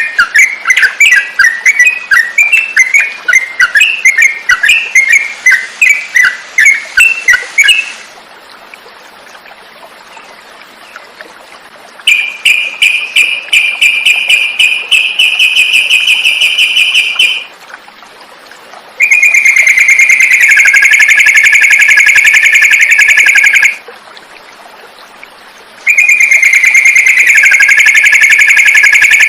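Yellow-vented bulbul (trucukan) song from a loud songbird tutor recording. Fast bubbly chattering phrases for about eight seconds, then after a pause a run of rapid trills, with the same trill phrase repeated twice with short gaps between.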